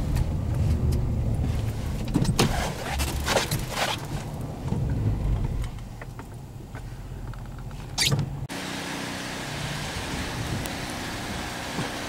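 Vehicle running, heard from inside the cab as it drives slowly over snowy road, with a low rumble and a few brief knocks and rustles. About eight and a half seconds in, the sound cuts off abruptly and a steady even hiss follows.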